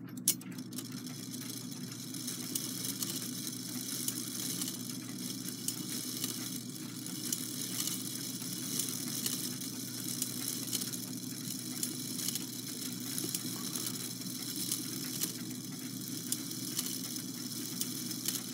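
Brass wheel train of a Takeda octagon clock movement spinning freely under mainspring power, with the verge not yet fitted to hold it back. It makes a steady fast whirring with a dense fine rattle of gear teeth.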